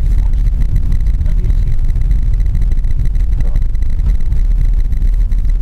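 Suzuki Grand Vitara driving slowly over a snow-covered road, heard from inside the cabin: a steady low rumble of engine and tyre noise.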